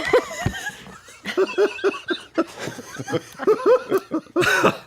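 People laughing: a run of short, quick laughs, with a breathy burst near the end.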